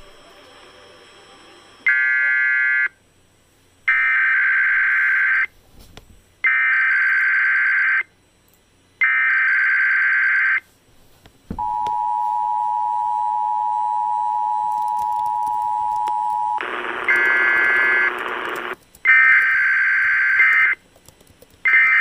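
Emergency Alert System tones from a KDKA-AM radio Required Weekly Test. Four screeching digital data bursts come about every two and a half seconds, then the steady two-tone attention signal holds for about five seconds. A burst of noise and further data bursts follow, marking the end of the message.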